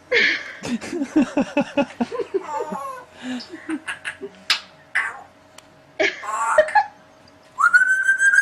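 A parrot vocalising: a quick run of short calls over the first couple of seconds, scattered clicks and calls after, then one long, slightly rising whistle near the end.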